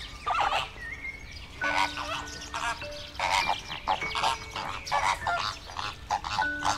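A flock of flamingos honking: many short, goose-like calls in quick, irregular succession, over soft background music with long held notes.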